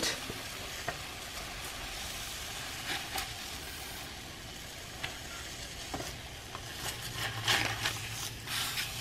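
Fish and cooking liquid sizzling with a steady hiss on a hot Dash 8-inch electric griddle, with a few short clicks and scrapes of a spatula on the nonstick surface about three seconds in and again in the last few seconds.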